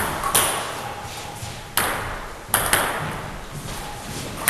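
Table tennis rally: the celluloid ball clicks sharply off the bats and the Donic table, a handful of strikes at uneven spacing, each ringing out with a long echo in the hall.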